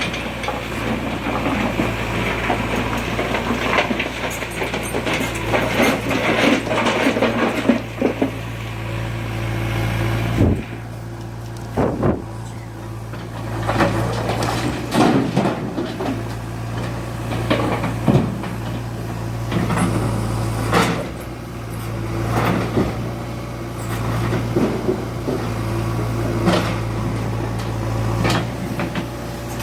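JCB 3DX backhoe loader's diesel engine running steadily, working harder with a dense rushing noise for about the first ten seconds, then settling to a lower run. Repeated sharp knocks and clanks sound over it, typical of the bucket and load striking metal while a dumper is loaded.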